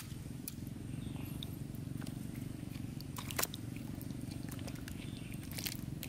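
A steady low rumbling hum with a fine rapid pulse, from an unseen motor or engine, with a few light clicks and splashes as plastic toys are handled in a basin of muddy water.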